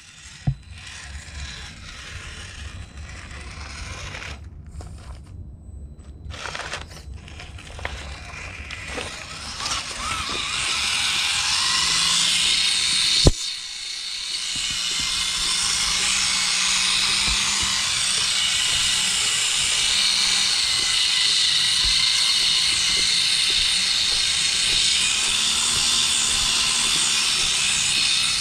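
Small RC crawler truck's electric motor and gears whirring as it drives over a wooden floor. It runs in short stop-start spurts at first, then steadily and louder from about ten seconds in, with one sharp click near the middle.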